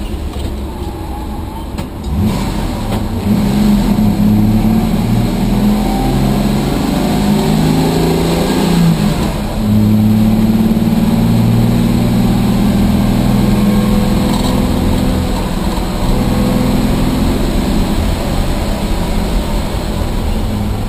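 Rambler race car's engine running hard on track, heard from inside the cabin. Its pitch climbs and drops as the car accelerates and lifts, and it gets louder about two seconds in and again near the middle.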